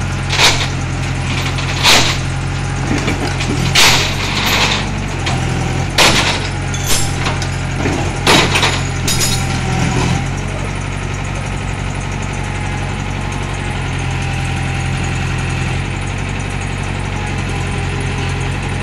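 Hitachi UH035 excavator's diesel engine running steadily while the machine climbs onto a truck bed. Over the first ten seconds it is punctuated by sharp metallic knocks and clanks, one every second or two, as the steel tracks and bucket bang against the deck. After that the engine runs on evenly.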